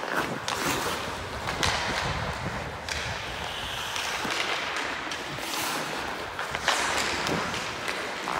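Hockey skate blades scraping and carving on the ice, with several sharp clacks of sticks on the puck.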